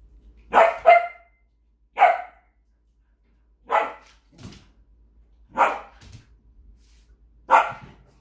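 Samoyed barking at a treat on the floor: a quick double bark, then single barks every second or two.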